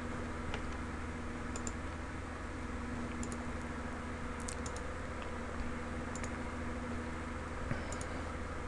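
Faint clicks from computer use, coming singly and in a few small clusters, over a steady low hum.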